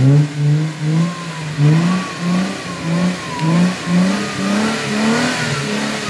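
Jeep Wrangler's engine revving up and dropping back in repeated surges as it churns through deep mud. A wavering higher whine rides above the engine.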